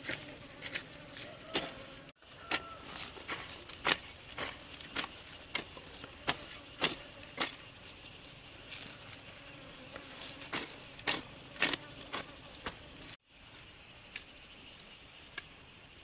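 Sharp, irregular taps and clicks, roughly two a second, over a faint steady high hum.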